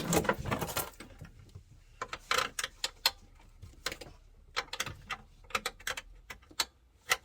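Hand tools clicking and clattering on metal while the rusty switch is being unfastened from the steering column: a dense burst of clatter at the start, then scattered sharp clicks.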